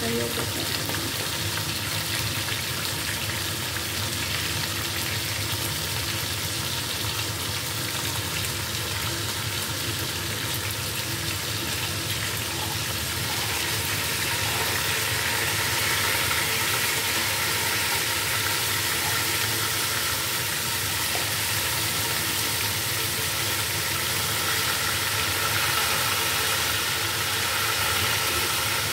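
Chicken pieces sizzling as they fry in oil in a non-stick pot: a steady frying hiss that grows a little louder from about halfway through.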